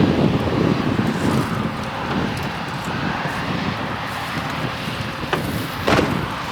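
Steady low rumble of a vehicle on the move with wind noise on the microphone, and two sharp knocks close together near the end.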